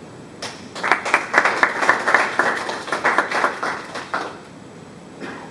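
A small audience applauding, the separate claps starting about half a second in and dying away after about four seconds.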